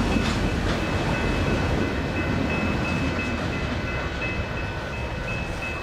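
Freight train cars rolling past, a steady rumble of steel wheels on rail with a few faint clicks near the start. A thin, high, steady whine comes and goes above the rumble.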